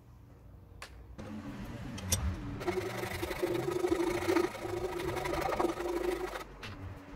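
Small hand saw cutting through a piece of wooden axe handle clamped in a vise. A few light knocks come first, then a steady, gritty run of sawing from about two and a half seconds in, which stops briefly near the end.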